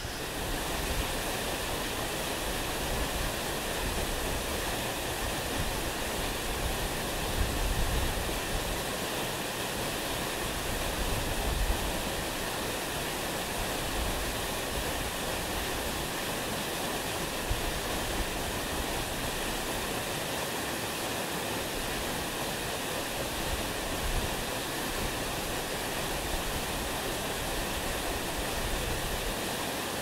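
Mountain waterfall plunging into a rock pool: a steady, dense rush of falling water, with a couple of brief low rumbles in the first half.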